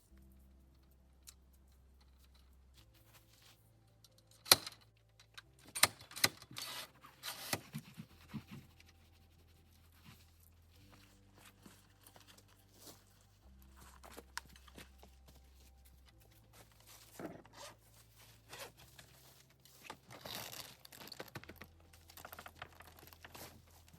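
Intermittent handling noises: rustling, crinkling and sharp clicks, bunched in two busy stretches, over a faint low steady hum that changes pitch every few seconds.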